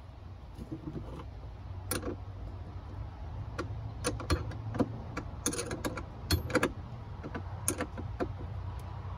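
Irregular light metallic clicks and clinks of wire lugs, terminal hardware and tools being handled at battery and shunt terminals, busiest in the middle.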